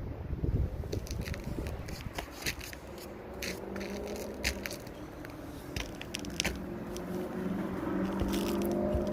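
Irregular scraping, crunching and clicking from handwork on a roll-roofing roof surface. From about a third of the way in, a steady engine-like hum grows louder.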